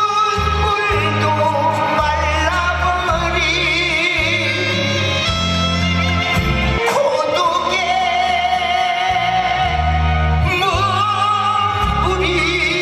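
Live trot music played through a stage PA, with a bass line and a lead melody carried by wavering, heavy vibrato.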